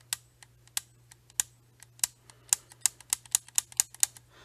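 Trigger of a Franchi 48-AL semi-automatic 12-gauge shotgun being pulled and released again and again: a run of light metallic clicks that quickens about halfway through. The hammer does not fall, a trigger-group fault that keeps the gun from firing.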